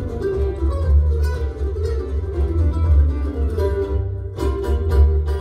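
Live acoustic string band playing an instrumental tune: mandolin, fiddle, guitar and upright bass, with quick plucked notes over a strong, steady bass line.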